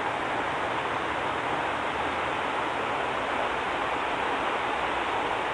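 Steady hiss of rain falling, an even rushing sound without distinct drops or bird calls.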